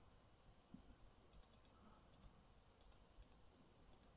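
Near silence with faint, sharp double clicks from a computer mouse, coming irregularly about every half second from a little over a second in.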